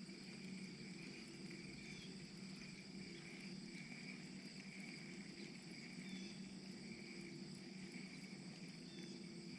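Faint insects chirping in a steady, repeating pulse about once a second, over a low steady hum.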